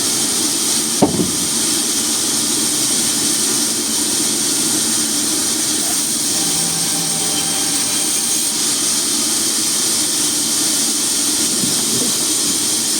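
Steady machinery running with a constant hiss, and one short knock about a second in.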